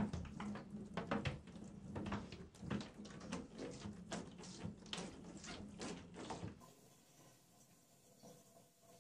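Water splashing and sloshing in a shallow tub in quick, irregular splashes as a cat moves through it and a hand swishes the water. About two-thirds of the way through the splashing stops, leaving only a faint trickle from a faucet.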